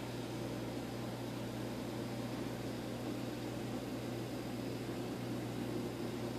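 Steady mechanical hum with an even hiss from a running reef aquarium's pump and water circulation.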